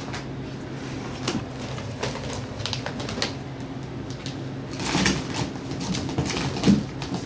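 Ferrets scuffling and wrestling on a fabric sheet and against clear ribbed plastic play tubes: irregular rustles, knocks and crinkles, over a steady low hum.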